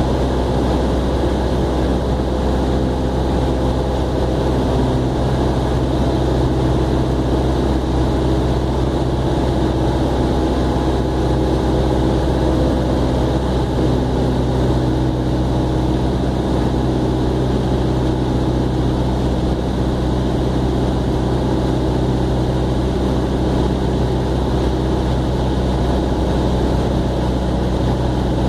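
Aircraft engine and airflow noise heard from inside the aircraft on final approach: a steady low drone with a constant hum and no change in pitch.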